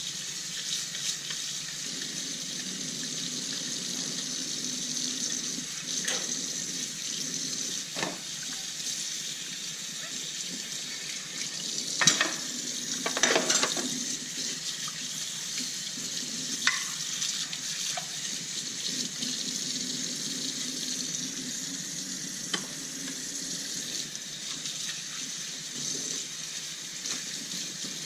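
Tap water running steadily into a kitchen sink while dishes are washed, with scattered clinks and knocks of dishes. The loudest clatter comes about twelve to thirteen seconds in.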